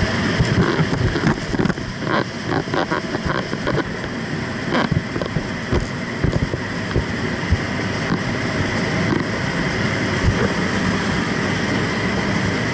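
Steady engine and propeller noise of a jump plane heard from inside the cabin, mixed with wind rushing in at the open exit. In the first few seconds a run of short knocks and rattles comes from the jumpers shifting in their seats.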